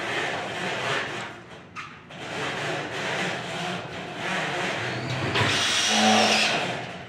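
Cordless power driver running in several short bursts, driving screws into steel studs and track, with a longer, louder run and a steady motor whine near the end.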